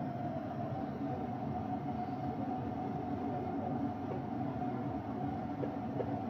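Steady low rushing of a burner under a kadai of deep-frying oil, with the oil bubbling around litti as they fry.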